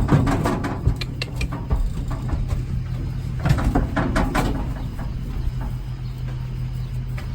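A truck engine idling steadily, with bursts of metal clanks and knocks in the first half, as calves are unloaded from a livestock trailer.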